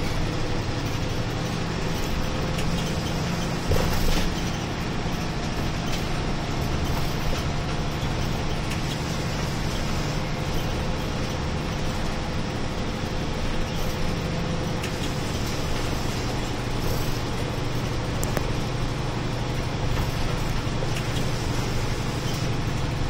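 Steady drone of a route bus's engine and tyres heard inside the cabin at the front while it drives along, with a strong low hum. A single brief clunk comes about four seconds in.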